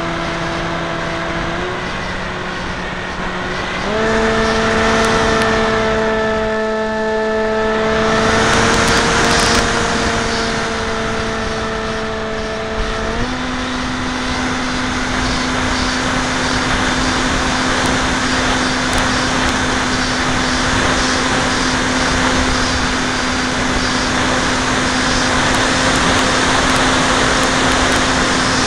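Brushless electric motor and propeller of an F27 Stryker RC flying wing, heard from a camera on its nose in flight: a steady whine in several tones that steps up in pitch about 4 seconds in and again about 13 seconds in. Under it is a rushing noise that swells around 8 to 10 seconds in.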